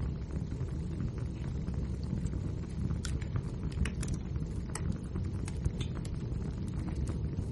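Wood fire burning: a steady low rumble with scattered sharp pops and crackles from the burning logs.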